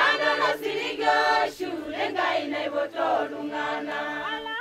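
A choir of several voices, men's and women's, singing together in harmony, unaccompanied.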